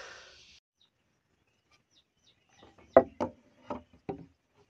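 A run of five or six sharp, hollow knocks of a wooden stick striking a dry bamboo pole, starting about two and a half seconds in, the second knock much the loudest.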